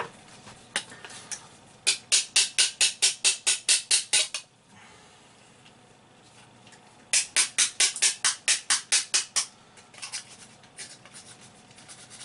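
Filler knife scraping in two runs of quick back-and-forth strokes, about five a second, cleaning off dried plaster filler. Fainter, scattered scrapes follow.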